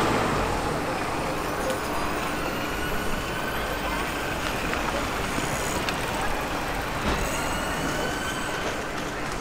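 Road traffic: heavy vehicles running, with a whine that rises slowly in pitch.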